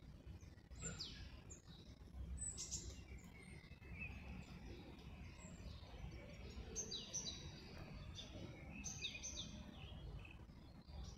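Small birds chirping: clusters of short, quickly falling high notes about a second in, at two and a half seconds, around seven seconds and again near the end, over a faint low background rumble.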